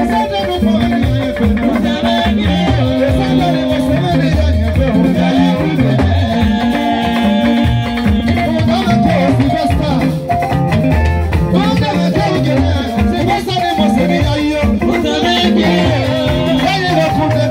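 Live band music: electric guitar over a stepping bass line and drums with hand percussion, and a man singing into a microphone.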